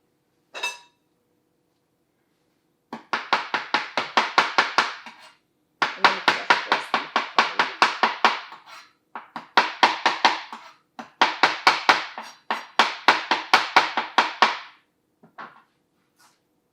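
Large kitchen knife chopping fresh parsley on a cutting board: rapid, even strokes, about six a second, in five bursts of roughly two seconds each.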